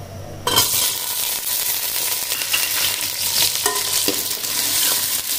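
Food frying and sizzling in a pan, stirred with a spatula that knocks and scrapes against it. The sizzle starts abruptly about half a second in and then holds steady.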